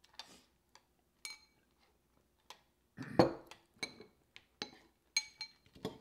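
Metal spoons clinking against ceramic cereal bowls as people eat, in scattered sharp taps with a short ring, and a louder knock about three seconds in.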